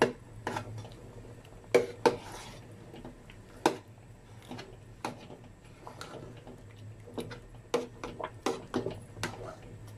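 Metal spoon knocking and scraping against the side of a metal pot while stirring and mashing thick cooked cassava in coconut milk. The clicks come irregularly, about two a second, with the sharpest strikes about two seconds in and just before four seconds.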